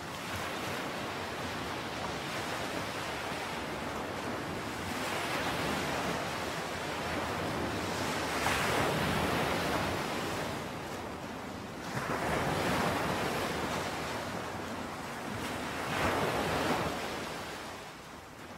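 Sea waves breaking and washing in, the rushing noise swelling and falling back every three or four seconds.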